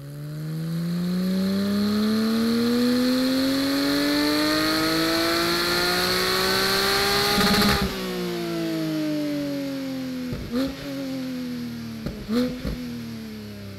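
Porsche 718 GT4's 4.0-litre naturally aspirated flat-six making a full-throttle pull on a chassis dyno through the stock exhaust, its valves held fully open. The pitch climbs steadily for about eight seconds to around 7,400 rpm, then the throttle closes and the engine winds down with a falling pitch and a few sharp pops.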